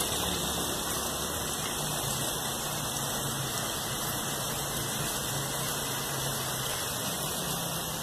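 Steady rushing of flowing water.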